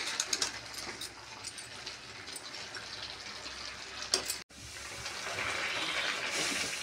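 Potatoes and fenugreek leaves simmering and sizzling in a metal kadhai over a high gas flame, boiling off the water the methi has released. A ladle clicks against the pan a few times in the first second and again around four seconds in. The bubbling grows a little louder near the end.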